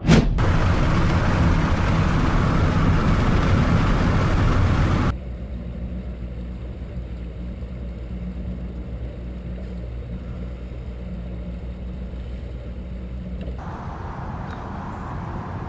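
Motorboat engine running with rushing wind and water noise, loud for the first five seconds, then cutting abruptly to a quieter, steady engine hum; the sound changes again near the end.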